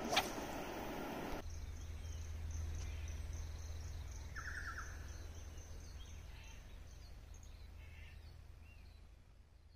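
Outdoor ambience: a steady low rumble with faint bird chirps, including a quick run of chirps about four and a half seconds in. It opens with a loud noisy burst and a short falling sweep that cut off abruptly after a second and a half.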